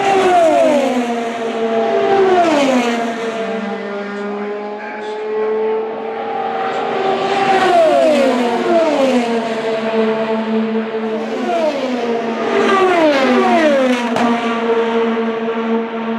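IndyCars running 2.2-litre twin-turbo V6 engines pass at speed one after another, each high engine note dropping sharply in pitch as it goes by. The passes come in bunches: two near the start, several more in the middle and late on, over a steadier engine drone from cars farther around the track.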